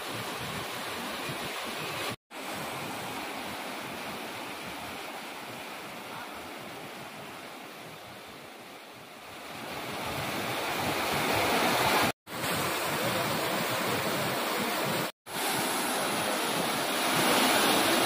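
Waterfall rushing over rocks into a pool: a steady wash of falling water that grows louder about ten seconds in. It cuts out to silence briefly three times.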